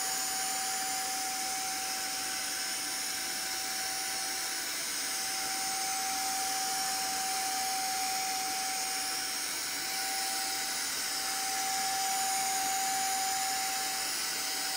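Morus V6 vacuum garment steamer running, being worked over curtains to take out wrinkles: a steady hiss of steam and suction with a steady whine that dips briefly twice.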